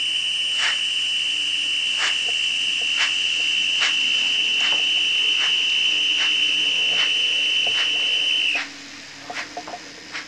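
Döhler & Haas sound decoder in an Arnold BR 18.5 model steam locomotive, playing through the model's small speaker: a steady high tone with a soft beat about once a second. The tone cuts off suddenly about eight and a half seconds in, leaving only a few faint clicks.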